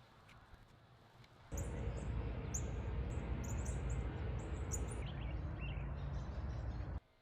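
Small birds chirping repeatedly over a steady background rumble of outdoor noise, which starts abruptly about a second and a half in and cuts off just before the end.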